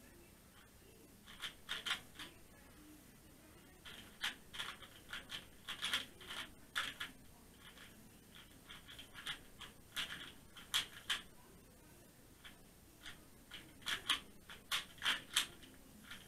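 Valk 3 speedcube (a 3x3 puzzle cube) being turned by hand during a blindfolded solve: quick runs of plastic clicks as the layers turn, each run an algorithm, with short pauses between runs.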